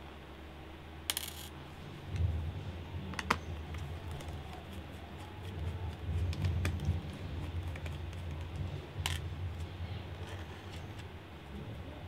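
Small metal laptop screws and a precision Phillips screwdriver clicking against a laptop's plastic bottom case as screws are taken out: three sharp clicks, over low rubbing and handling noise.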